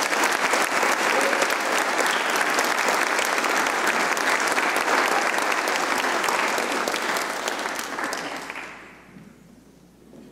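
Congregation applauding after a solo song, a dense patter of hand claps that fades away about eight or nine seconds in.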